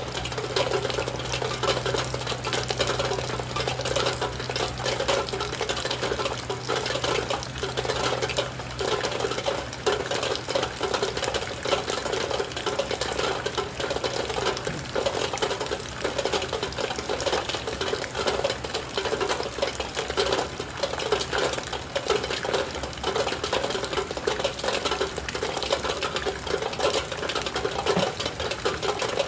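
Heavy rain falling steadily: a dense, even patter of drops striking a surface.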